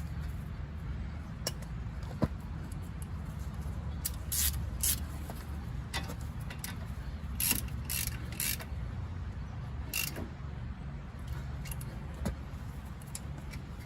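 Metal hand tools clicking and clinking in short, irregular taps while the front brake caliper is refitted, over a steady low hum.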